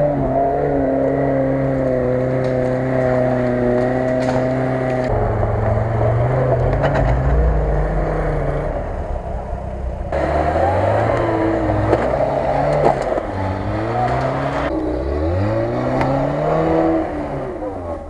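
Off-road 4x4 engines, a Lada Niva and a UAZ-469, revving hard while clawing through snow. The engine note is held high for about five seconds, then changes abruptly several times as short clips follow one another, with repeated rising and falling revs in the second half.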